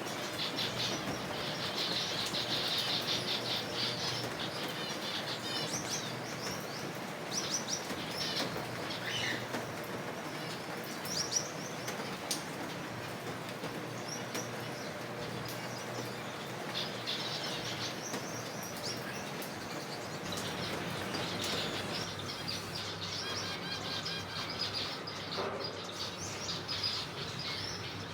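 A colony of zebra finches calling in an aviary, many short, nasal calls overlapping in a busy chatter, with wings fluttering.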